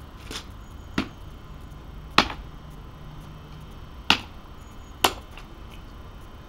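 Small axe and thin stick knocked against a wooden tree-stump chopping block to split the stick: a faint knock, then four sharp wooden knocks at uneven intervals.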